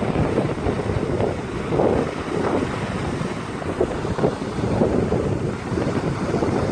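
Wind buffeting the microphone in uneven gusts, over the wash of sea waves on the shore.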